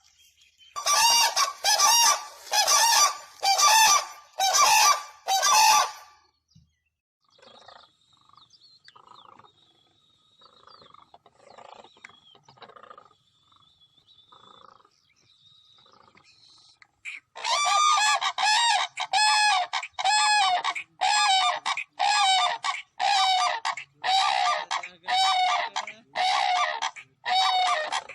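Cranes (koonj) calling in loud, repeated honking calls. There are about six calls a second apart, then a quieter stretch with only faint calls, and from about two-thirds of the way in a fast run of calls, more than one a second.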